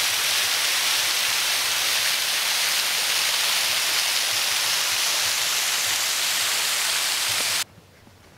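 Steady rush of running water, like a creek pouring over a riffle or small fall, that cuts off suddenly near the end.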